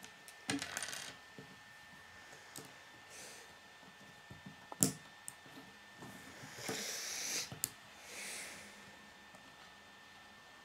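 K'nex plastic rods and connectors being handled and snapped together: scattered sharp clicks, the loudest just under five seconds in, and a few short stretches of plastic rattling and rubbing.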